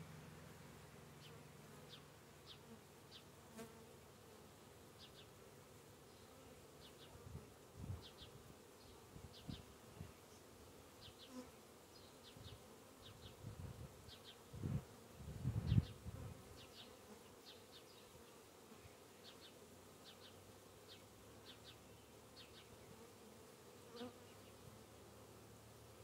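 Honeybees buzzing faintly around a small hive's entrance, with single bees flying past close by in louder swelling buzzes, the loudest about fifteen seconds in.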